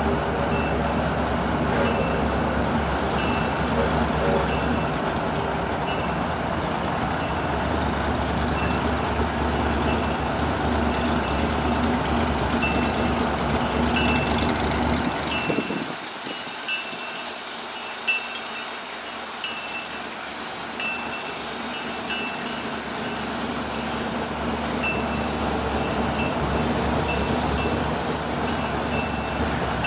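Steam locomotive bell ringing in short, regular strokes about once a second as a small 0-6-0 tank engine draws slowly toward the platform. A steady low rumble underneath drops away about halfway through, and the train's running sound builds toward the end.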